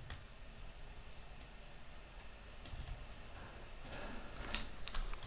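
Computer keyboard being typed on: about half a dozen faint, widely spaced keystroke clicks, more of them toward the end.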